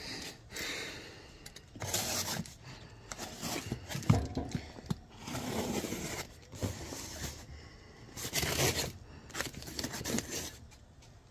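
Packing tape on a cardboard box being slit and torn open, with the box scraping as it is turned on a metal tabletop: a series of short scraping and tearing strokes about a second apart.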